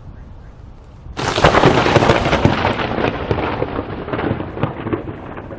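Thunder from a close lightning strike: a sudden sharp crack about a second in, then a crackling rumble that slowly fades and grows duller.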